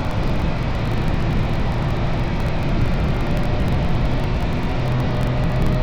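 MV Agusta F3's inline three-cylinder engine running through its stock exhaust, a steady note whose pitch edges up slightly near the end.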